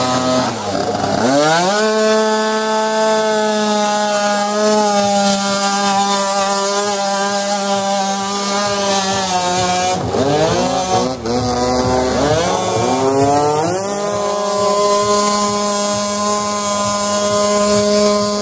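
Tuned two-stroke scooter engine revved up and held at high, steady revs to spin the rear tyre in a burnout. About ten seconds in it drops, is blipped up twice, then is held high again.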